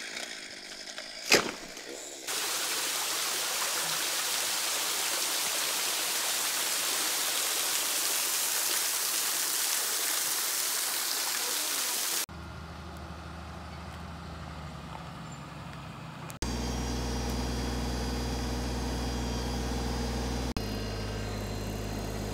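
Splashing water from a small waterfall for about ten seconds, after a sharp knock near the start. About halfway through it gives way to a steady, even hum from an LS compact tractor's diesel engine running, which steps louder twice at cuts.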